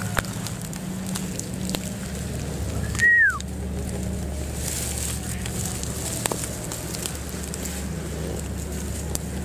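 A steady low hum with faint crackling and scattered light clicks. About three seconds in comes one short, loud whistle-like call that holds high and then falls in pitch.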